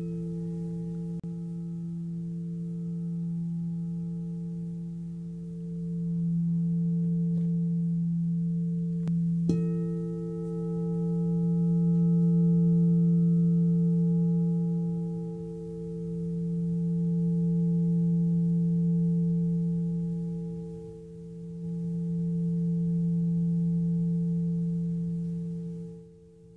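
Singing bowls ringing in long sustained tones, the loudness swelling and fading in slow waves every few seconds. A bowl is struck again about nine and a half seconds in, renewing the ring.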